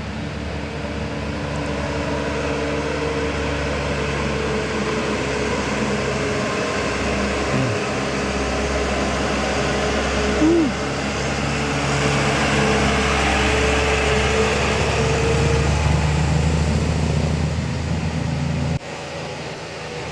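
A large bus's diesel engine running steadily, growing gradually louder, with a short tone about ten seconds in. The sound drops suddenly near the end.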